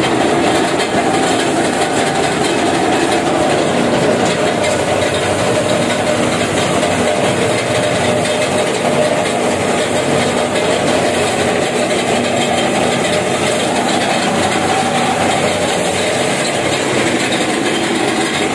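Home-built rubber-roll grain sheller running with grain passing between its rollers: a loud, steady mechanical rush with a steady hum through it.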